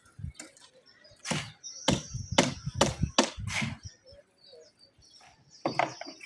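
A series of sharp knocks or strikes, about six in quick, uneven succession, then a pause and two more near the end, some with a thin high ring after them.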